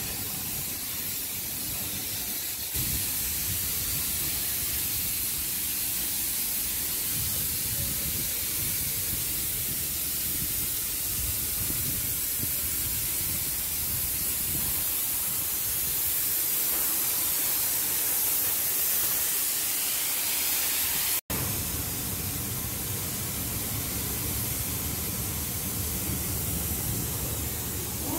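Steady high hiss of spray-painting equipment applying primer to a ship's hull, over a low rumble. The sound cuts out for an instant about two-thirds of the way through.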